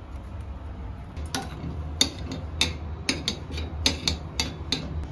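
A run of sharp, irregular clicks and taps of kitchen utensils, one or two a second, over a low steady hum.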